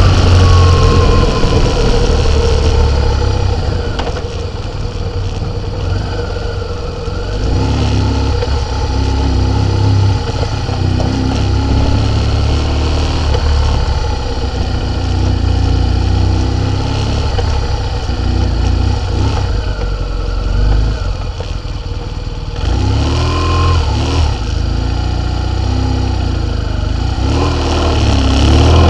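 Vehicle engine running at low speed, its pitch rising and falling several times as it speeds up and slows, over a heavy low rumble of wind and road noise on the microphone.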